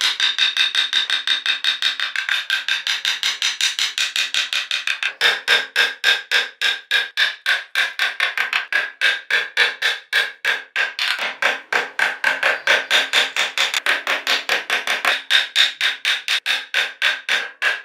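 Carving chisel driven into wood with quick, even light taps, about five a second, each tap with a short metallic ring.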